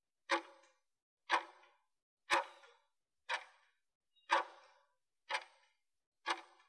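Interval timer ticking, one sharp tick each second as the last seconds of a work period count down.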